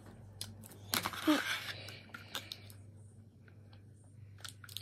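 A set of small plastic stamps being picked up and handled: a rustle about a second in, then scattered light clicks as the plastic pieces knock together.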